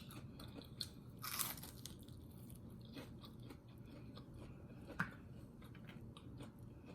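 Close-up eating sounds: quiet chewing with small mouth clicks, a short crisp crunch about a second and a half in and a sharp click about five seconds in.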